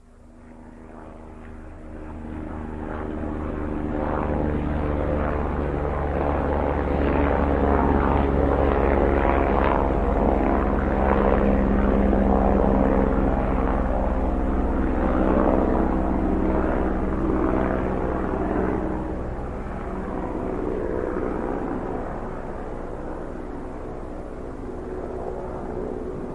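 Helicopter rotor and engine running, growing louder over the first few seconds, holding steady and loud for a long stretch, then easing off a little near the end.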